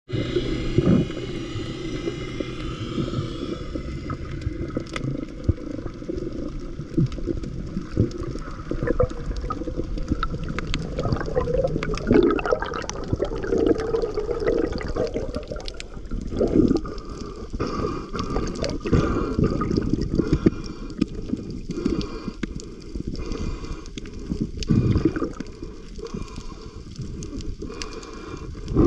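Water heard through an underwater camera: a muffled, continuous sloshing and gurgling with many scattered clicks and crackles, and louder surges of water movement now and then.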